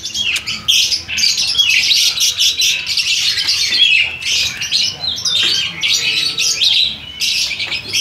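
Many caged lovebirds chirping and squawking at once, shrill calls overlapping without a break.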